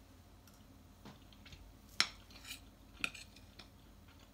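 A metal fork clinking and scraping on a ceramic plate while cutting a piece of cake. There are a handful of light, faint clinks, the sharpest about two seconds in.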